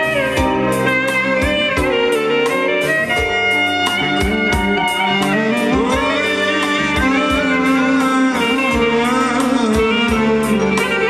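Instrumental music with a steady beat, about two beats a second, under a gliding melody line.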